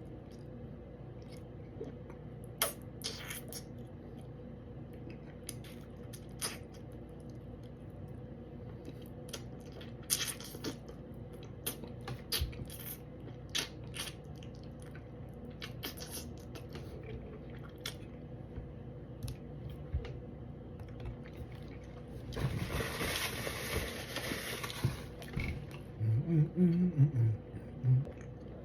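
Close-up eating sounds of a person chewing fish and picking it off the bone: scattered small clicks, smacks and crunches. About three-quarters of the way through comes a noisy rustle lasting about three seconds, then a run of short, loud, low hums near the end.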